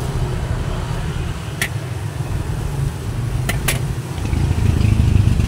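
A steady low engine-like rumble, growing a little louder near the end, with a few short sharp crackles of thin plastic takeaway bags being handled and knotted: once about a second and a half in, then twice in quick succession around three and a half seconds in.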